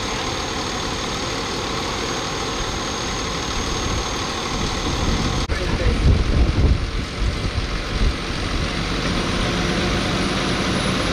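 Fire engine running steadily at the pump panel, with its large-diameter supply hose connected. About five and a half seconds in, the sound changes abruptly to a heavier, uneven low engine rumble from a fire department pickup truck idling with its trailer.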